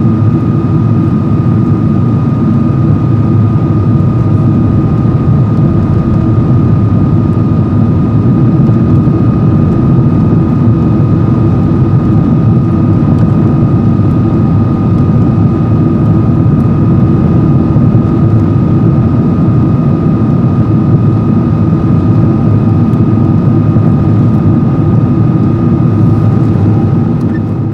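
Cabin noise of a Boeing 777-200 airliner climbing out after take-off: a loud, steady rumble of jet engines and airflow with a steady high whine over it. It begins to fade at the very end.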